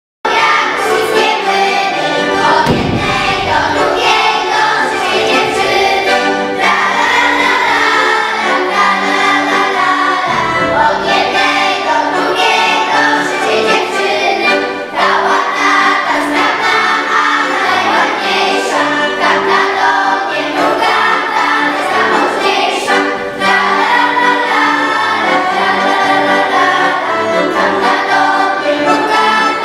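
Children's choir singing a folk song together, accompanied by a piano accordion.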